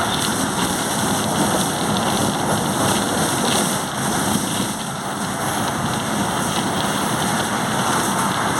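Volkswagen 17.230 OD bus in motion: steady engine and road noise without a distinct whine or change in pitch.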